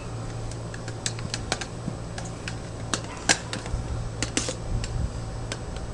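A spoon tapping and scraping against a plastic blender jar as thick banana whip is worked out of it: irregular light clicks, over the steady low hum of air conditioners.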